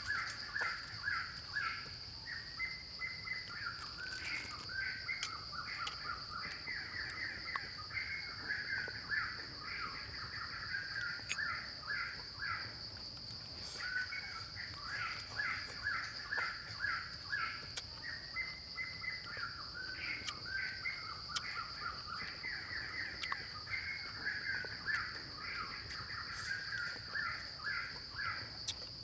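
Outdoor forest ambience: a steady high insect buzz with bouts of rapid, repeated chattering animal calls, and a few faint clicks.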